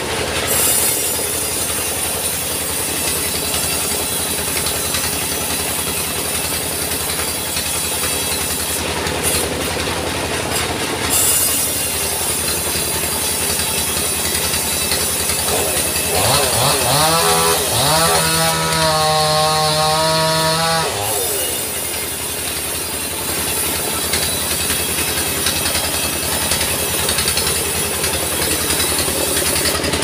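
Log sawmill running steadily: an engine drone with a fast, even pulse under a high hiss from the saw. About two-thirds of the way through, a pitched tone rises and then holds for a few seconds before it stops.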